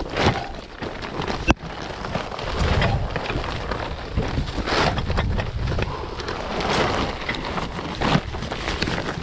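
Footsteps and rustling of someone picking their way through soft mangrove mud, over a steady low rumble of noise on the microphone. There is a single sharp snap about one and a half seconds in.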